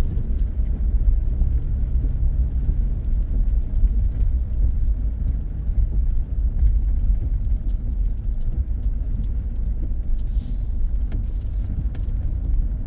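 Truck engine and tyres rumbling at low speed, heard from inside the cab as it rolls across a wet gravel lot, with a few short hissing swishes near the end.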